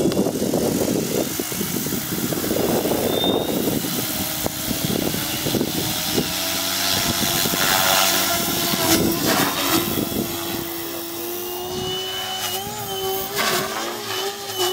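Radio-controlled model helicopter running, its rotor and motor whining as it lifts off the grass and climbs away. The pitch holds steady, then wavers up and down near the end as the helicopter manoeuvres.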